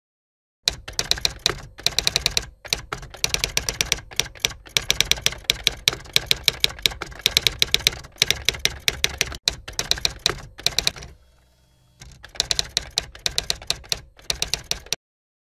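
Typewriter sound effect: rapid runs of key clicks with short gaps, keeping time with text being typed out on screen. The clicking halts for about a second roughly three-quarters of the way through, then resumes and stops shortly before the end.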